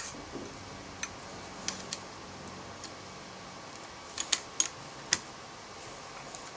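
Light, irregular clicks and taps of small parts being handled as an airsoft Version 3 gearbox is put back together, with a quick cluster of clicks about four to five seconds in.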